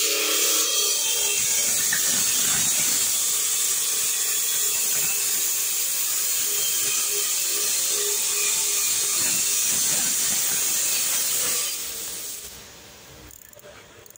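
A loud steady hiss that starts abruptly and fades away about twelve seconds in.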